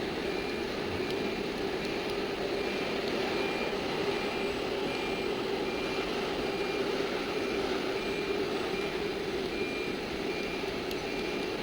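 ATC CNC machine running with a steady hum, with a faint short high beep repeating at an even pace.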